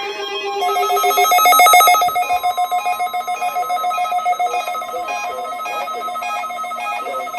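Weather alert radio receivers sounding their alert alarms for a NOAA Weather Radio weekly test. A loud electronic ringing trill comes about a second in, then gives way to a steady pulsing beep of about three a second over a held tone.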